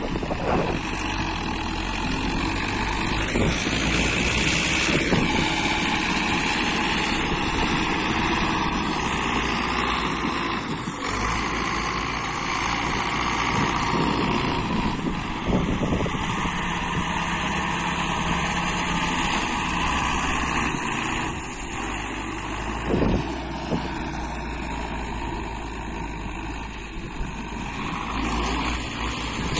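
Belarus MTZ tractor's diesel engine running under load while the tractor and its towed spreader churn through deep wet mud.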